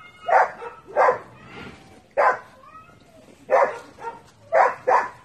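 Dog barking: about six short, sharp barks at irregular intervals.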